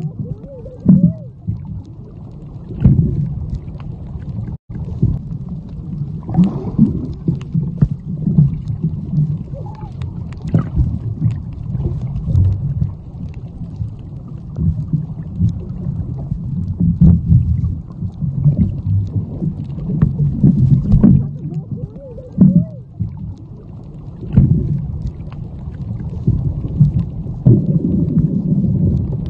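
Muffled underwater noise from a phone held beneath the surface: low rumbling and sloshing water with irregular knocks and swells, all dull and bass-heavy.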